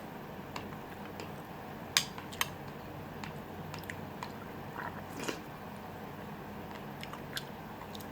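A person chewing food close to the microphone, with a few sharp clicks and taps scattered through, two louder ones about two seconds in.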